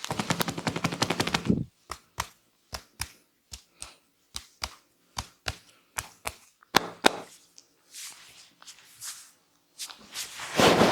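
Percussive hand strikes of a head massage: a fast run of slaps for about a second and a half, then sharp single strikes landing in quick pairs about twice a second. A softer rustle follows, and a dense flurry of strikes starts near the end.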